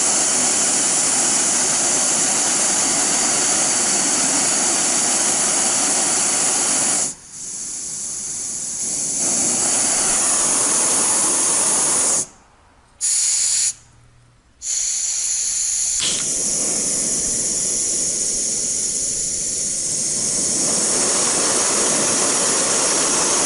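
Jetboil Flash's butane-propane gas burner running with a steady, loud hiss. It drops lower about a third of the way in and comes back up, cuts out twice in quick succession about halfway through, catching briefly between, then runs on steadily.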